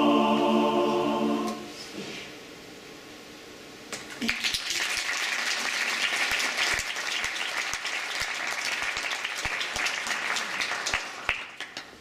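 Men's choir holding a final a cappella chord, released about a second and a half in. After a short hush, the audience applauds from about four seconds in, the clapping thinning out near the end.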